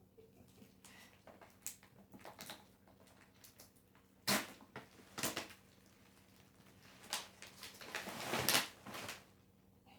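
Household handling sounds in a small room: a few sharp knocks and clicks, then a longer scraping, rustling noise near the end.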